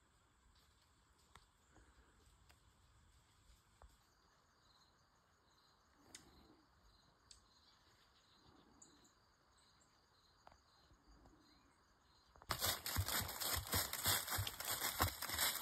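Quiet outdoor air with a few faint ticks and faint high chirps repeating about twice a second. About twelve seconds in, a sudden loud, close crackling rustle starts, like something moving through dry leaves or rubbing against the microphone, and carries on.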